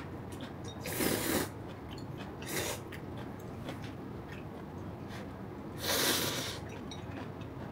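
A person eating instant ramyeon noodles makes three short, rushing breathy sounds with the mouth, about a second in, near three seconds and around six seconds, with quieter eating noises between them.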